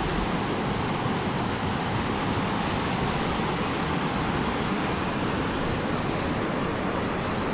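Steady rush of river water pouring over rocky rapids: a loud, even hiss with no break.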